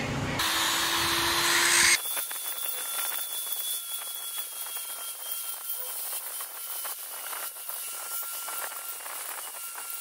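Handheld high-speed rotary tool grinding a wooden carving with a small bit. It gives a thin, steady high whine with scratchy grinding ticks over it. For about the first two seconds the tool noise is louder and lower, then it changes abruptly.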